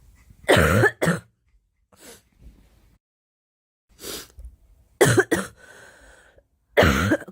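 A girl coughing: several harsh coughs in short groups, the first pair about a second in, more around four to five seconds, and a last one near the end, with quieter breaths between.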